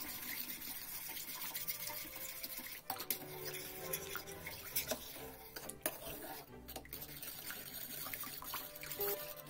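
A metal spoon stirring a thin milk, flour and sugar mixture in a stainless steel pot: liquid sloshing, with a few clinks of the spoon against the pot.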